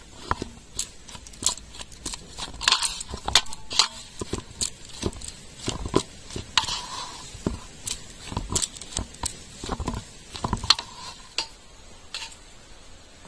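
Hands kneading soft gulab jamun dough of milk powder and milk in a metal bowl: irregular knocks, taps and scrapes against the bowl, now and then a brief metallic ring. The knocking thins out near the end.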